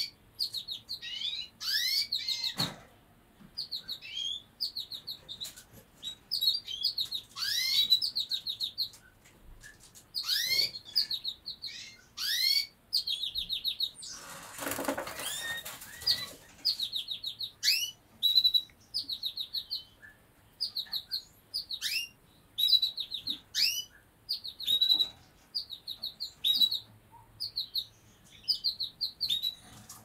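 Caged finches singing: repeated fast trilled phrases and rising whistled notes, one after another. A short rustling noise comes about halfway through.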